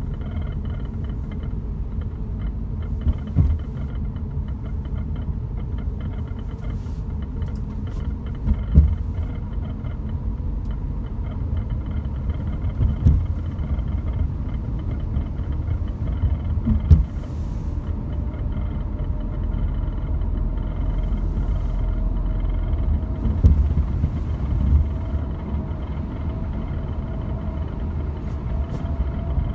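Steady low road and engine rumble heard inside a moving Volkswagen Golf GTI Mk7, with short sharp knocks or rattles standing out every few seconds.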